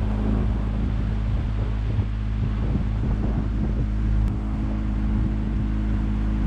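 A jon boat's tiller-steered motor running steadily at speed under way, with a constant engine note, and wind buffeting the microphone.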